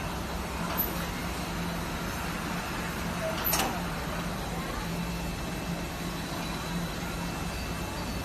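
Automatic cutting machine running with a steady hum, and a sharp click about three and a half seconds in.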